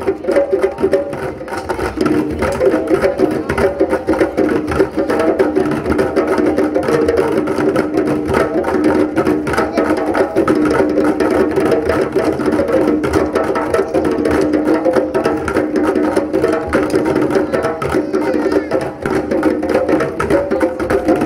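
West African drumming: djembes played by hand, together with sticks beating on plastic buckets, in a dense, fast, unbroken rhythm.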